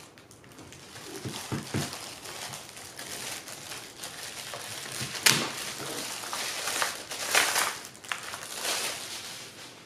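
Clear plastic bag crinkling and rustling as a keyboard is slid out of it, loudest about five seconds in and again around seven and a half seconds. A few soft knocks from the keyboard being handled come about a second and a half in.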